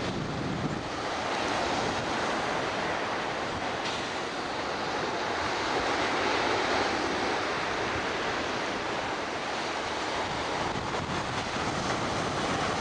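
Ocean surf breaking and washing up a sandy beach, a steady rush of waves that swells and eases gently, with wind buffeting the camera's built-in microphone.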